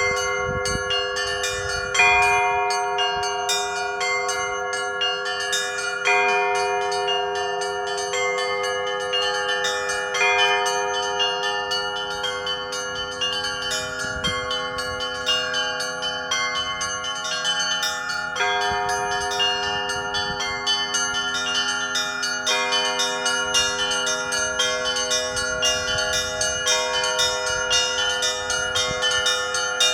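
Russian Orthodox chapel bells rung by a single bell ringer: small bells struck in a fast continuous pattern over the sustained ringing of larger bells, with a heavier bell stroke about every four seconds.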